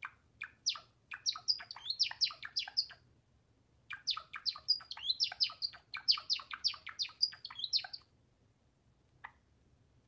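Java sparrow singing: a few separate chirps, then two quick runs of rapid chirping notes, the second one longer, with a short pause between them, and one last lone chirp near the end.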